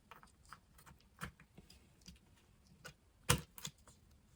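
Scattered small clicks and taps from handling a laptop RAM module over the open laptop, with a louder knock about three seconds in.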